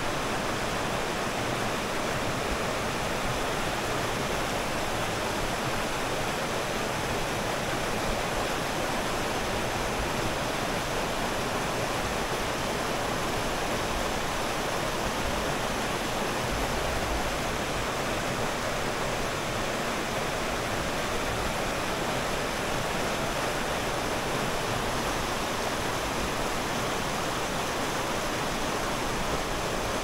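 Spring-fed mountain stream rushing and splashing over small cascades: a steady, unbroken rush of water.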